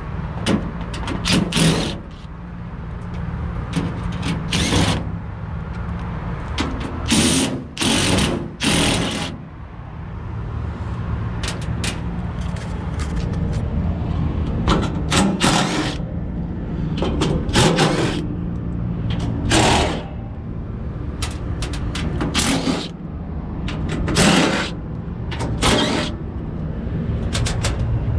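Cordless impact driver backing out the sheet-metal screws of an HVAC unit's access panel in repeated short bursts, each a second or less, over a steady low machinery hum.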